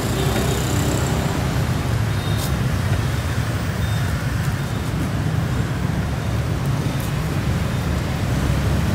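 Steady rumble of passing road traffic on a busy city street.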